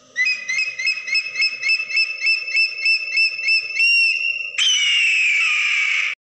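Bald eagle call: a rapid run of high, piping chirps at about four a second. About four and a half seconds in, a longer scream follows that falls slowly in pitch.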